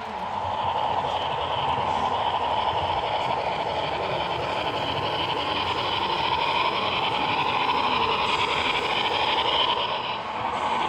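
Steam locomotive sound effects from the Paragon4 sound decoder in a Broadway Limited HO-scale Milwaukee Road S-3 4-8-4 model, played through the model's speaker: a steady steam hiss that gets louder about half a second in.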